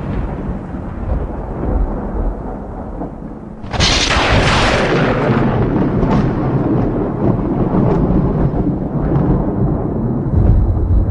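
Thunder: a deep rumble fades off, then a sharp crack of thunder strikes about four seconds in and rolls on into a long, low rumble with faint crackles in it.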